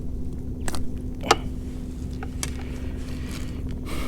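Handling noises in a kayak: four light clicks and knocks, the loudest about a second in, over a steady low hum.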